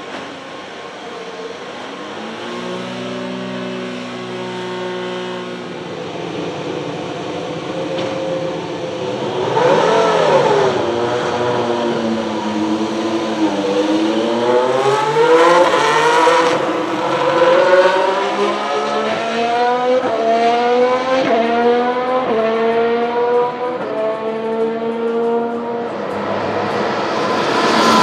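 2018 Formula 1 cars' turbocharged V6 hybrid engines. One idles steadily, then a car accelerates through the gears in a string of rising notes, each dropping back at an upshift. Near the end another car passes close by, loud, its pitch falling as it goes.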